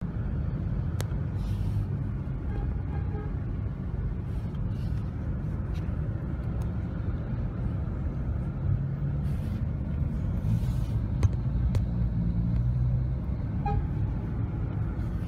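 Steady low rumble of a road vehicle in motion, with a few faint short tones over it.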